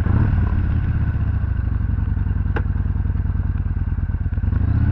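Yamaha Bolt's 941 cc SOHC V-twin idling with a steady, fast pulsing beat, with one faint click about halfway through.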